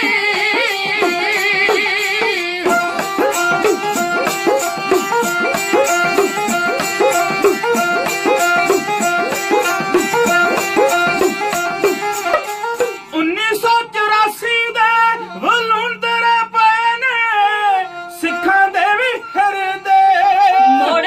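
Punjabi dhadi folk music: a bowed sarangi plays a wavering melody over quick strokes on dhadd hourglass drums, with voices held at times. The drumming is dense for the first half, then thins out while the melody carries on.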